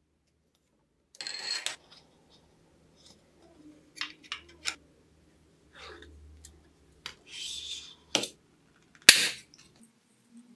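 Hands handling small workshop parts, a clear plastic sheet among them: scattered light clicks and taps, short rubbing scrapes about a second in and again about seven seconds in, and a sharp knock about nine seconds in, the loudest sound.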